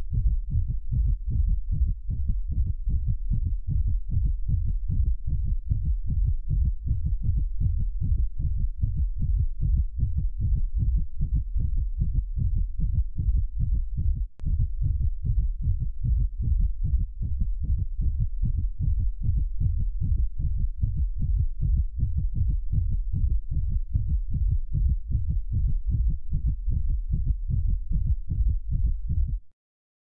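Fast heartbeat sound effect: a rapid, steady run of deep, low thumps, with a brief break about halfway through. It stops just before the end.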